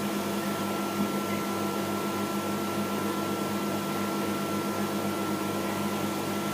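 Microwave oven running: a steady hum with a faint high whine.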